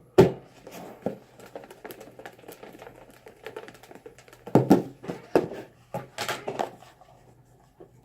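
Hands handling paper raffle slips in a container, making a run of light clicks and rustles. A cluster of louder clattering comes about halfway through.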